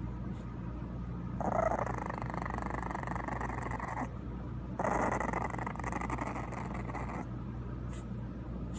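A dog growling: two long, rough growls, the second starting about a second after the first ends.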